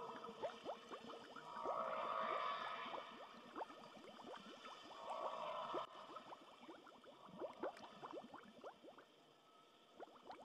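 Underwater bubbling: a dense stream of small bubbles, heard as many quick rising blips, thinning out near the end.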